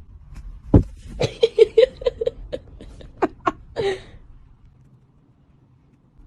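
A person laughing in a quick run of short bursts, with a longer falling sound about four seconds in.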